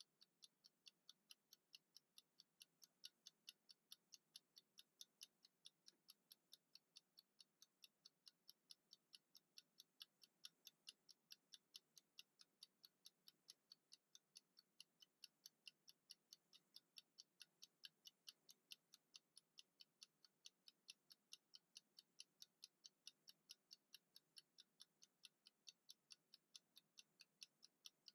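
Mechanical wind-up kitchen timer ticking as it counts down. The clockwork gives faint, fast, perfectly even ticks at a few per second.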